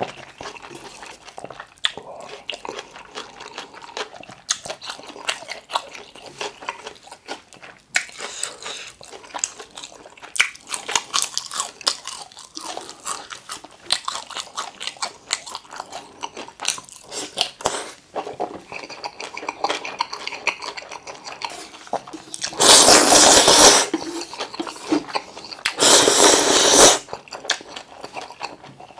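Close-miked mouth sounds of a person eating curry ramen and kimbap: steady wet chewing with many small crunches and smacks. About two-thirds of the way through come two loud slurps a few seconds apart.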